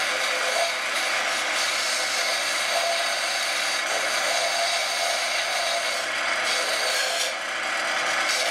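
Bench sander running with a wooden dowel pressed against its spinning sanding disc, grinding the dowel's end to a taper: a steady, even sanding hiss.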